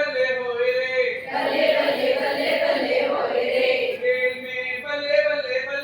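A group of high voices singing a Hindi action song together in unison, holding long notes.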